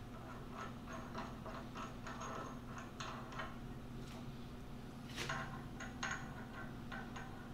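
Light metallic ticks and clicks of flange nuts being turned down onto steel studs by hand, irregular, with a couple of sharper clicks about five and six seconds in. A low steady hum runs underneath.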